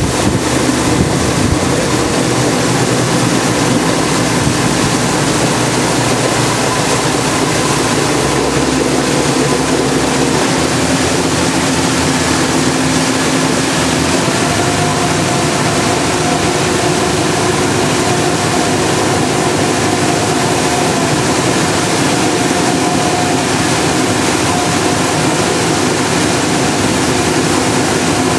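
Engine of a motorized river tour boat running steadily at cruising speed, a steady hum over the rushing water of its churning wake.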